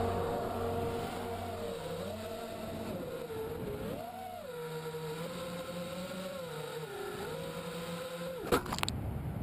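FPV racing quadcopter's motors (Emax 2300kv with Racekraft 5051 tri-blade props) whining, the pitch rising and falling with the throttle. A sharp click comes near the end, followed by a steady hiss.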